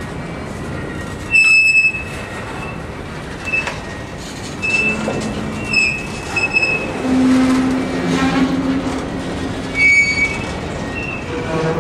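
Empty covered hopper cars of a freight train rolling slowly past at close range, with a steady rumble of steel wheels on rail. Several short high-pitched metal squeals come through it, the loudest about a second and a half in and near ten seconds in, and a lower drawn-out tone runs from about five to nine seconds in.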